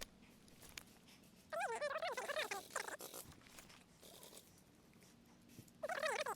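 Two bouts of a high, whining animal call that wavers quickly up and down in pitch, each about a second long, a few seconds apart.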